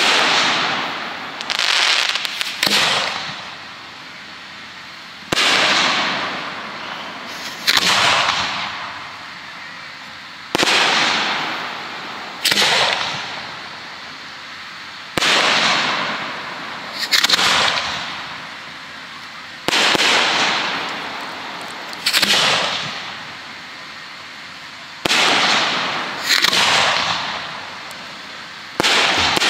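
1.3G display fireworks going off in a steady sequence, about a dozen reports, one every two to three seconds. Each is a sharp bang trailing off into a loud hiss that fades over a second or two.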